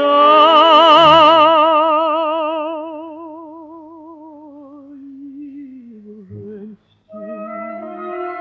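A male singer holds the last word of a Russian romance, "любимая", on one long high note with wide vibrato. The note fades over several seconds and slides down. After a brief break near the end, the instrumental accompaniment comes back in.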